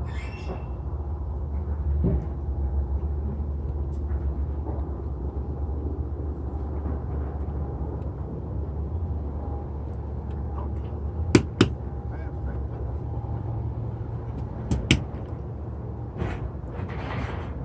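Steady low rumble with two pairs of sharp knocks, one pair about two-thirds of the way in and another a few seconds later, during windshield installation work.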